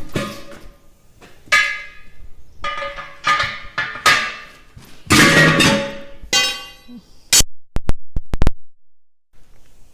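Background music of plucked, ringing notes, each struck sharply and dying away. A few sharp clicks come near the end, followed by a brief gap.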